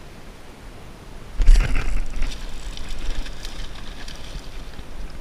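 A hooked fish splashing and thrashing at the water's surface close to the bank, starting suddenly about a second and a half in with a loud first splash, then lighter irregular splashing.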